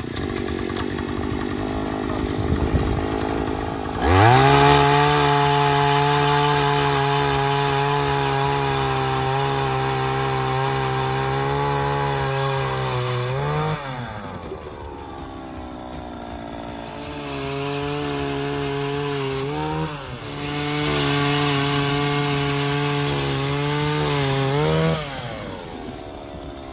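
Gas-powered ice auger boring through lake ice: its small engine runs at a lower level at first, then about four seconds in revs to full throttle with a steady pitch as the bit cuts. It drops back about halfway, revs up again with a couple of brief dips, and falls back to idle near the end.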